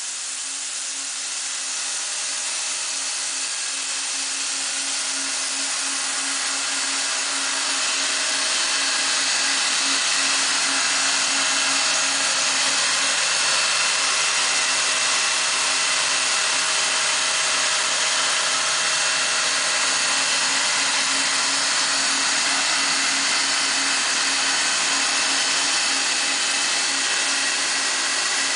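Mitsubishi 110H1 wire EDM machine's dielectric-water pump motors and chiller running during a cut: a steady whirring hiss with a constant hum under it. It grows louder over the first several seconds, then holds steady.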